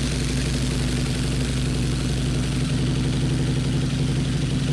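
Harley-Davidson V-Rod Night Rod's liquid-cooled V-twin idling steadily through aftermarket TAB mufflers.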